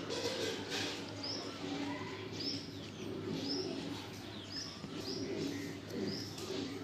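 A small bird chirping, repeating one short rising note about once a second, over a faint steady background murmur.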